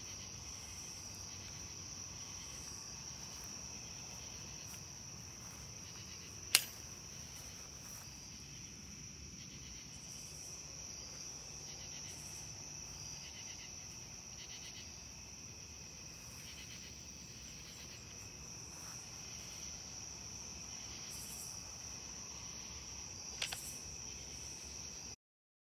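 Steady high-pitched chorus of night insects such as crickets, with a sharp click about six and a half seconds in and a fainter one near the end.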